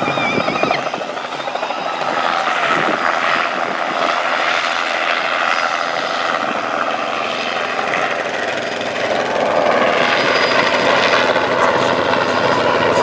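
Helicopter flying, its rotor and engine noise steady and fairly loud.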